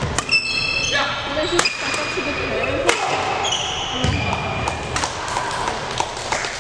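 Badminton rally: sharp cracks of rackets hitting the shuttlecock about a second and a half apart, with short sneaker squeaks on the wooden court floor between the hits.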